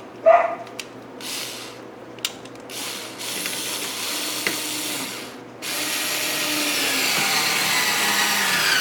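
Power drill driving a wood screw into pine: a few short bursts, then two longer runs, the pitch of the last one falling as the screw pulls tight.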